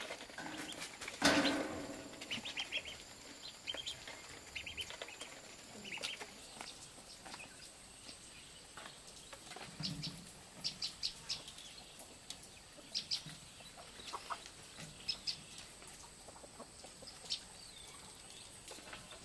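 Farmyard poultry calling: one loud call about a second in, then short, high chirps that come in quick clusters every second or two.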